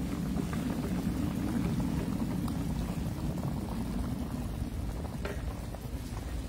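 Food frying in hot oil in a pan: a steady bubbling sizzle with scattered small crackles.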